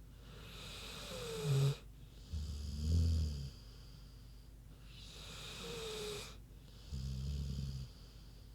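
An American Bulldog snoring in her sleep: twice, a long hissing breath is followed by a short, low rumbling snore.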